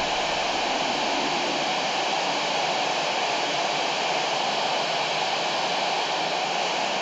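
Steady rushing static hiss from a handheld FM receiver tuned to the 2-metre amateur band, with no voice on the channel: the open channel between the International Space Station astronaut's replies.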